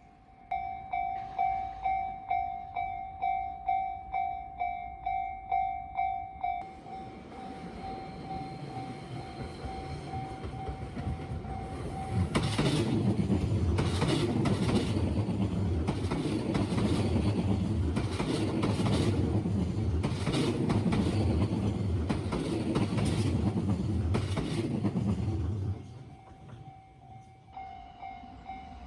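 Japanese railway level-crossing alarm ringing in a steady ding-ding pulse, about two strokes a second, which drops to a softer level about six seconds in. About twelve seconds in, a Tobu electric train passes over the crossing with a loud rumble and repeated wheel clacks for roughly thirteen seconds. After the train has gone, the softer alarm is heard again.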